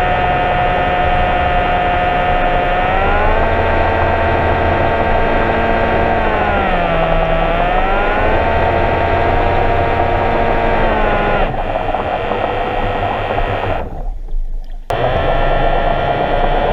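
An engine running steadily, its pitch stepping up about three seconds in, dipping and recovering around seven seconds, and sinking back near eleven seconds as its speed changes; the sound cuts out briefly near the end.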